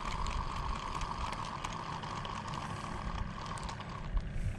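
Zebco 33 spincast reel being cranked by hand: a steady whir of the reel's gearing with fine rapid clicking, stopping about four seconds in.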